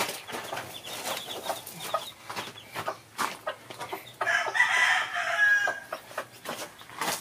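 Chickens clucking, with a rooster crowing once about four seconds in, lasting about a second and a half.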